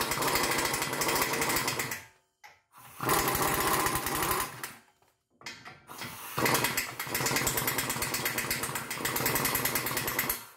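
A power tool with a fast rattle runs the brake caliper's mounting nuts on to snug them up. It runs in three bursts, the last one the longest, with short pauses between.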